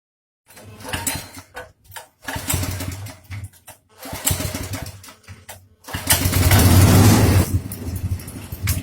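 Small engine driving a homemade drum mixer for mushroom substrate. It comes in short bursts broken by gaps, then runs steadily and louder from about six seconds in.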